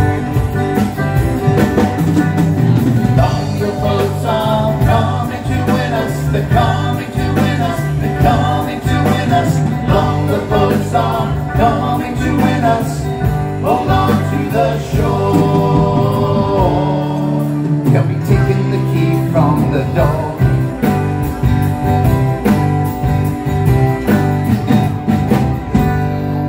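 Live band playing a song with acoustic guitars, keyboards and drums, with voices singing over it.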